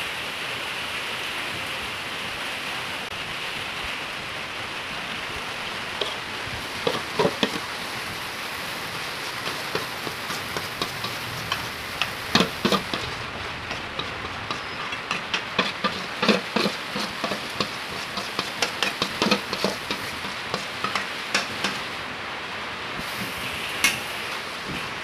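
A metal spoon scraping and knocking against a metal mixing bowl as thick cake batter is scraped out into a pot, in many short irregular clicks and taps, over a steady hiss.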